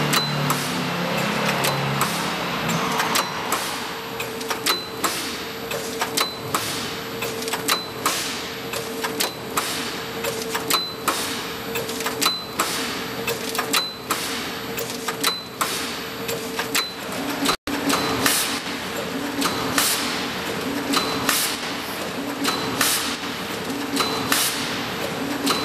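Roll-film zipper bag-making machine running: a steady hum under a regular mechanical clack from its sealing and cutting stroke, about once every three quarters of a second, each clack with a short metallic ping.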